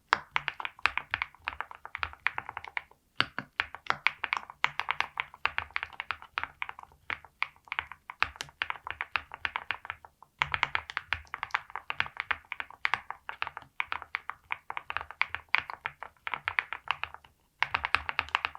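Typing on a NAGARE80 Barista custom mechanical keyboard with a polycarbonate plate, full foam, and Krytox-lubed Flower Shadow linear switches under PBT keycaps: quick, continuous keystrokes, pausing briefly about three, ten and seventeen seconds in.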